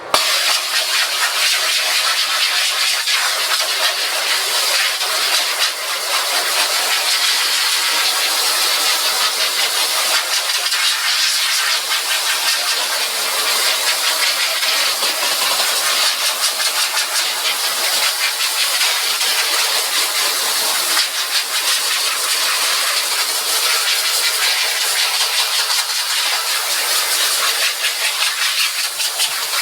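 Steady hiss of a water spray from a battery-powered portable pressure washer, washing softened emulsion out of a screen-printing screen. It starts abruptly. The washer's pump is so quiet it can't really be heard over the sound of the water.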